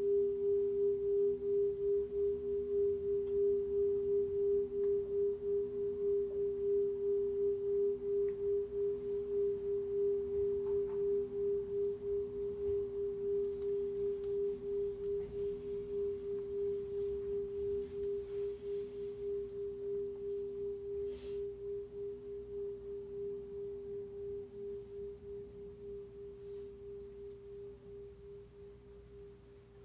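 Large ride cymbal's sustained tone: a steady, pure, bell-like hum with a weaker lower tone beneath it, pulsing about twice a second. It slowly fades over the last third and dies away by the end.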